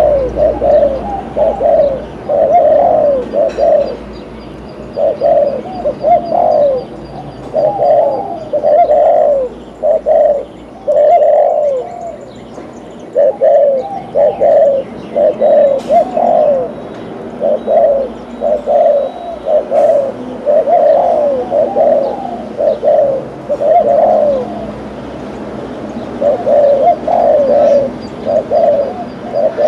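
Spotted dove cooing over and over, one short phrase of low coos after another with brief pauses between.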